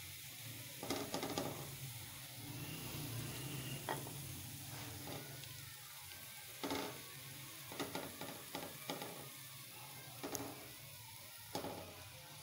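Sliced onions sizzling in hot oil in a non-stick frying pan as they are fried golden. A slotted spatula scrapes and knocks against the pan now and then while the fried onions are scooped out.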